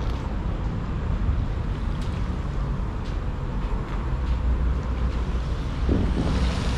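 Steady low engine drone with wind noise on the microphone, a few faint clicks in it and a swell near the end.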